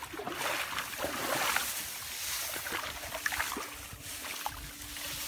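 Dry grass and reeds rustling and swishing in quick, irregular strokes as they are pushed through and parted close to the microphone.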